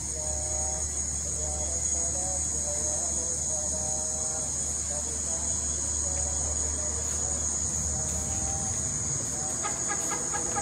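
Evening chorus of crickets: a steady, high-pitched trill that never lets up, with faint, short, wavering tones lower down.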